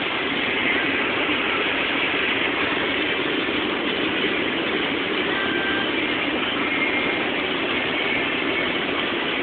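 Steady wind and tyre noise inside a Mercedes-Benz C-Class cabin at very high Autobahn speed, an even rushing sound with no change in pitch.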